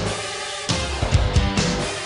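Background rock music with a beat of drum hits over guitar.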